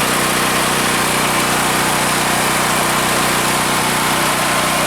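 Generac 5500 portable generator's engine running steadily at a constant speed, now starting and running after its rust-clogged fuel tank and fuel shutoff valve screen were cleaned.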